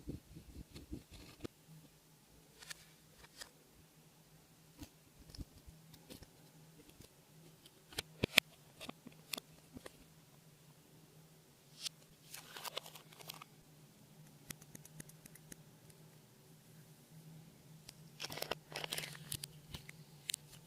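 Slime being worked by hand: scattered sticky clicks and pops, with longer crackly, scratchy stretches about twelve seconds in and again near the end, over a faint steady low hum.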